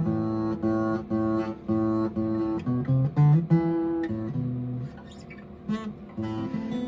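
Steel-string dreadnought acoustic guitar, a kit-built replica of a pre-war 1937 Martin D-28, played in strummed chords at a steady rhythm, softer for about a second past the middle.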